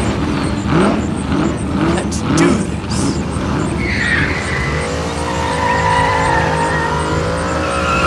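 A car's engine revving in short rising blips, then its tyres squealing in a long, wavering screech as it spins and slides on asphalt.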